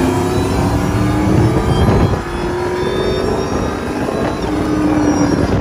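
Cammed Ford Lightning pickup's V8 at full throttle in a roll race, heard from inside the cab, its pitch climbing steadily. There is a brief break in the pull about two seconds in.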